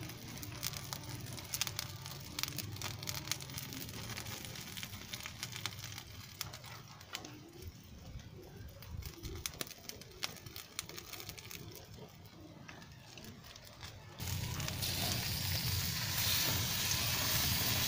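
Open wood fire crackling under banana-leaf parcels grilling on tiles, with scattered sharp pops. About fourteen seconds in, it gives way abruptly to a louder, steady sizzling hiss.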